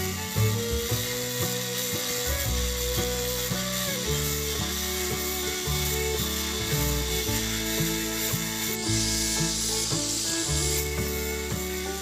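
Angle grinder with a cutting disc running under load as it cuts open the steel shell of a refrigerator compressor, its motor pitch shifting as the cut loads it.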